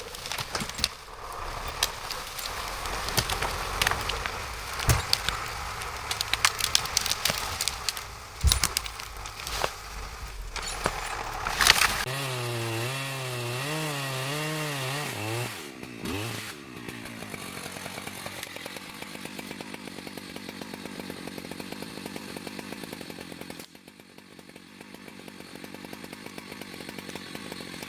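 A chainsaw running and cutting through wood, with many sharp cracks and snaps over the first twelve seconds. About twelve seconds in the sound changes abruptly to an engine whose pitch wavers up and down, then settles into steadier, quieter running.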